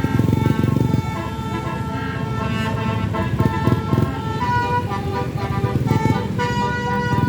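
Telolet Basuri multi-tone bus horn playing a tune of held notes that change pitch in steps several times, over a loud low rumble.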